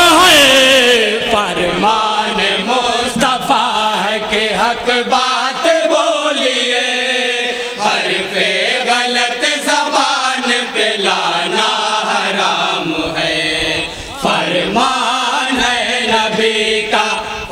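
A group of men chanting a naat (Islamic devotional poem) together in unison, in long drawn-out melodic lines, with a short break about two-thirds of the way through.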